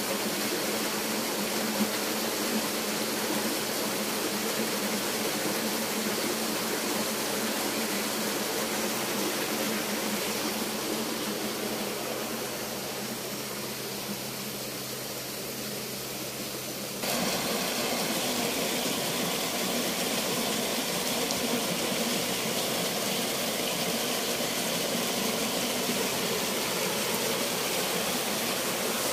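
Shallow stream running over stones, a steady rush of water. A little past halfway it abruptly becomes louder and fuller, where the water pours down a small rocky cascade.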